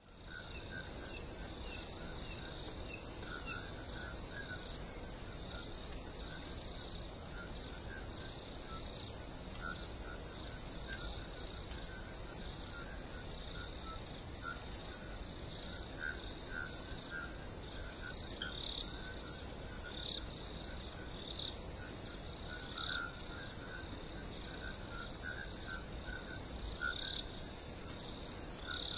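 Night chorus of crickets keeping up a steady high trill, with frogs repeating short calls underneath. Short falling chirps join the chorus past the halfway mark, and there is one brief louder note about halfway through.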